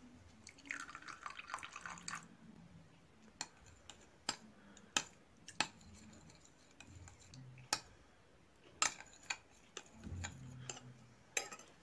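Liquid poured into a glass bowl for about a second and a half, then a metal spoon stirring it, clinking sharply against the glass about eight times at irregular intervals.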